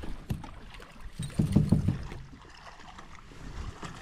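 Water lapping and sloshing around a kayak, with a brief louder low rumble about one and a half seconds in.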